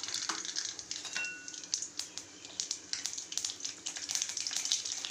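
Mustard seeds sizzling and spluttering in hot cooking oil, a steady hiss broken by many sharp little pops as the seeds burst. The oil is hot enough for tempering.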